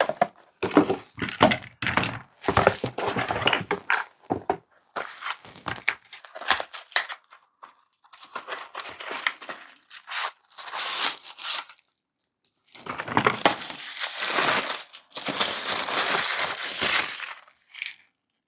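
Plastic packaging crinkling and rustling in irregular stop-start bursts as the parts of a soldering stand are unwrapped and handled, the longest spell of rustling in the last third.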